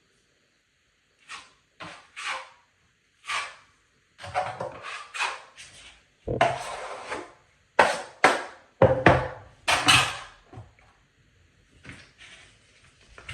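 Steel taping knife scraping joint compound across drywall tape, a dozen or so separate strokes, some short and some drawn out over about a second, thinning out near the end.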